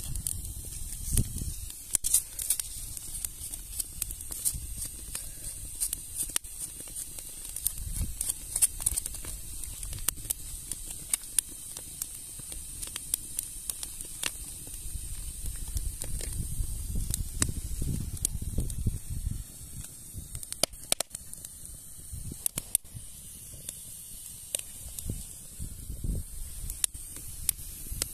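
Steady hissing with frequent scattered crackles and clicks, the sound of food cooking over a fire. Low rumbles come and go, loudest around the middle.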